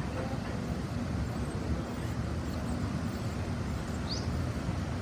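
Steady rumble of city street traffic, with vehicles passing along a busy avenue. A short high rising chirp comes through about four seconds in.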